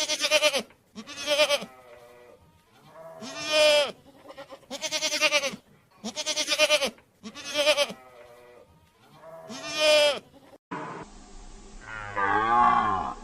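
A goat bleating over and over, about seven quavering bleats, one around three and a half seconds in longer and louder than the rest. Near the end, after a short break, a different animal gives one loud drawn-out call.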